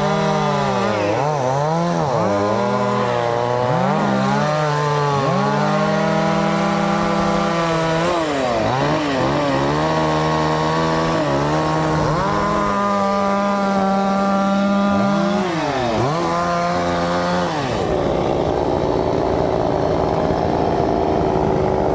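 Chainsaw cutting wood, its engine pitch sagging and climbing back again and again as the chain bites and clears, with steady high-revving stretches in between. About 18 s in the sound turns rougher and lower, with less clear pitch.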